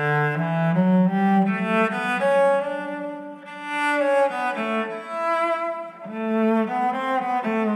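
Cello bowed in a slow line of long, held notes, each moving smoothly into the next. It is played through a Valhalla Supermassive reverb with a delay added, so the notes ring on and overlap.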